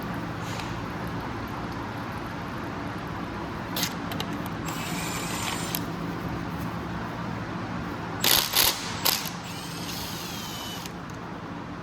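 Hand tools working on a bare engine: a ratchet clicking in short runs and several loud metal clinks about two-thirds of the way in, over a steady low hum.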